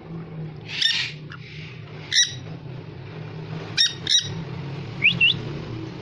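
Dusky conures calling: four short call notes, the last two close together, then a quick rising squeak near the end, over a steady low hum.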